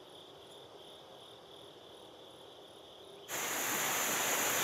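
Insects chirring in a faint, steady, slightly pulsing high drone. About three seconds in it cuts suddenly to a much louder rushing of shallow stream water.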